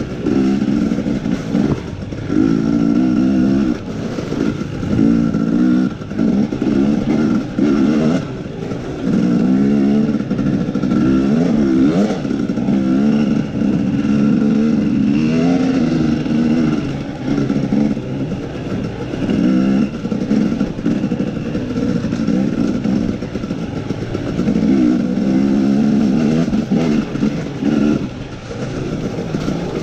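KTM 250 dirt bike engine revving up and backing off over and over, in bursts of a second or two as the throttle is opened and closed on a rough trail.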